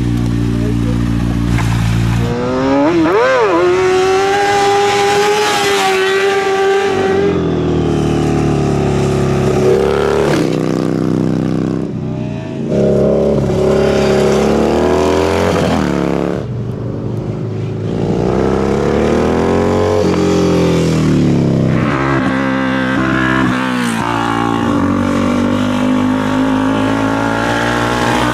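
Several motorcycles, one after another, accelerating and passing through tight curves. The engine pitch rises as each pulls hard and falls as it backs off, and a different bike takes over every few seconds.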